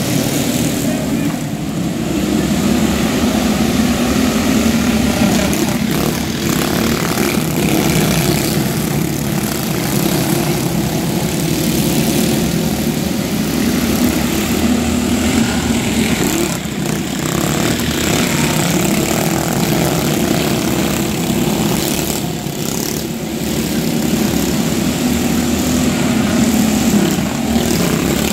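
Small racing engines droning steadily on a dirt track, the sound swelling and easing every few seconds.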